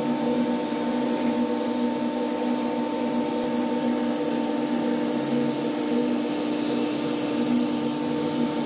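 Cordless electric dog clippers running with a steady hum as they shave through a matted coat.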